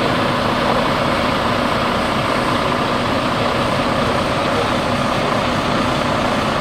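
Diesel engine of a single-axle dump truck idling steadily.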